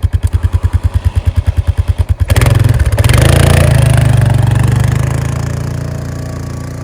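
A vehicle engine cranking on its starter in quick, even pulses, catching about two seconds in, revving up briefly and then settling as its level falls toward idle: a cold start in the snow to warm it up.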